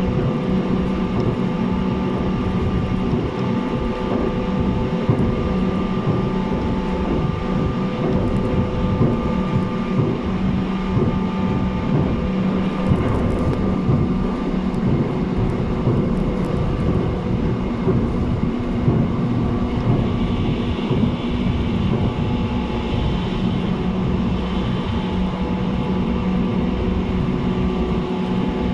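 Running noise heard aboard a JR East 719 series electric train cruising between stations: continuous rumble of wheels on rail with a steady electrical hum from the traction equipment. This unit is one known for an unusual running noise.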